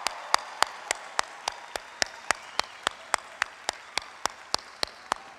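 A crowd applauding, with one person's loud, evenly spaced claps close to the microphone standing out at about four a second. The crowd's applause slowly fades underneath.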